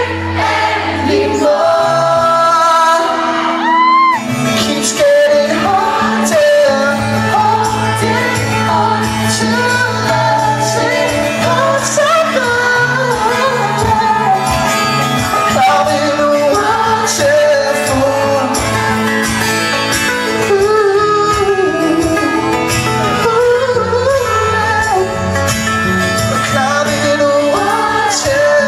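Live pop-rock band playing with singing, recorded from the audience in a large hall, with crowd voices singing along and shouting close to the microphone.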